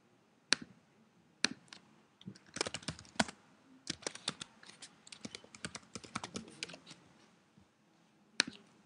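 Typing on a computer keyboard: a couple of separate clicks, then a quick run of keystrokes lasting about four seconds, and a single sharp click near the end.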